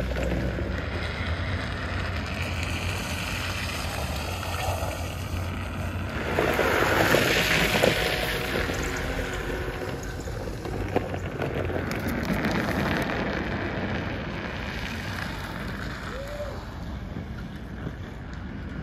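A small drift vehicle sliding across asphalt, with tyre noise and wind rushing on the microphone. It swells loudest about seven seconds in and eases off toward the end.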